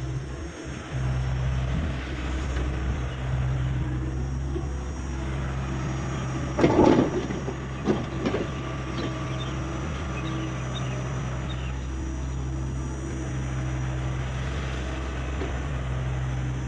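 Hyundai 85A excavator's diesel engine running steadily, with a loud clunk about seven seconds in and a shorter knock a second later.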